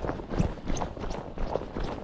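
Footsteps on a grassy earth path close to the microphone, a brisk walk of about three steps a second.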